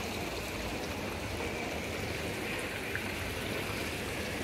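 Steady outdoor ambience in a pedestrian square: an even, rushing hiss with no distinct events.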